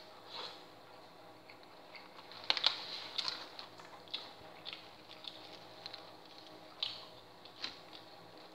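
Someone eating a meal: irregular small clicks and taps, with a louder cluster about two and a half to three seconds in, over a faint steady hum.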